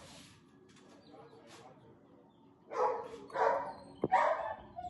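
A dog barks three times in quick succession, the barks starting a little after halfway and about 0.7 s apart, with a short sharp click just before the last bark.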